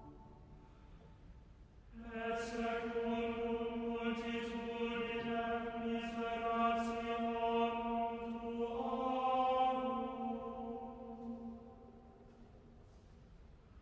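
A choir singing a slow chant in unison: one long sung phrase of held notes that steps up in pitch about nine seconds in, with soft pauses before and after.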